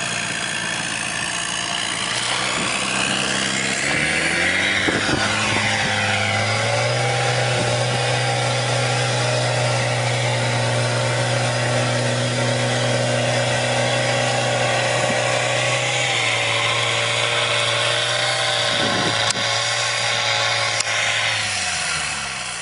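Tracked all-terrain vehicle's engine running under load: it revs up about four seconds in, holds at high revs while the vehicle climbs out of a creek bank, then eases off near the end.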